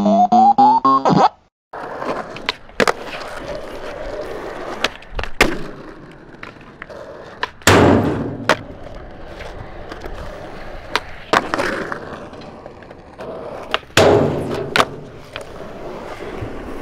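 A short 8-bit-style jingle ends about a second in. Then a skateboard's wheels roll on concrete, broken by sharp pops and landings of the board. The longest and loudest noises, around eight and fourteen seconds in, come as the board hits and slides along a ledge.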